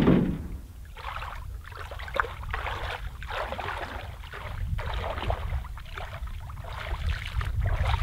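Feet wading through shallow lake water: a run of irregular sloshes and splashes, which grow busier near the end as water is scooped and splashed by hand. A low steady rumble sits underneath.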